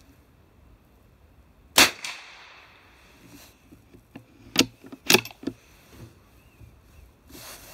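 A single .22 LR rifle shot about two seconds in, with a short echoing tail. About three seconds later comes a quick cluster of sharp clicks and knocks as the rifle is handled.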